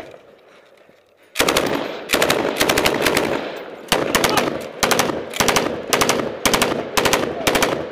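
Belt-fed machine gun firing at close range: after about a second and a half of quiet it opens up in a string of short and longer bursts of rapid automatic fire, with brief gaps between them.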